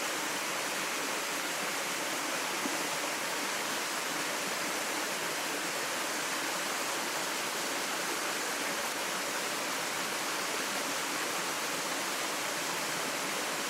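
A cascade of waterfalls rushing steadily into rock pools, heard close by as a constant, even hiss.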